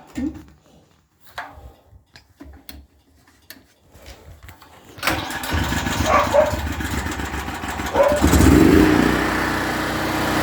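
A few small clicks and knocks, then about five seconds in a Generac portable generator's engine starts up, picks up speed and settles into steady running. It keeps running because its CO sensor is unplugged, bypassing the shutdown.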